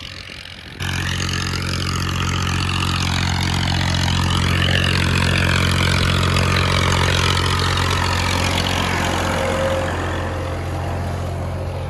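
Massey Ferguson 240 tractor's three-cylinder diesel engine running steadily under load while pulling a disc harrow through a field, starting suddenly about a second in.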